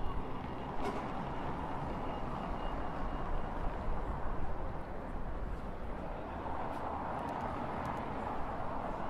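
Steady hum of city traffic in the street below, swelling a little about a second in and again late on as vehicles pass.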